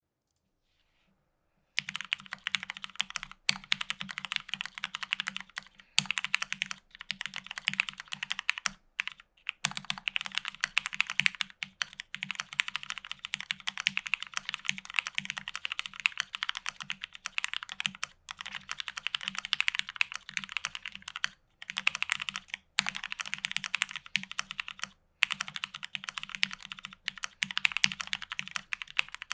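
Fast typing on a custom Alice-layout mechanical keyboard with lubed, filmed retooled Cherry MX Black linear switches on an FR4 plate and GMK keycaps: a dense run of keystroke clacks that starts about two seconds in, broken by a few short pauses.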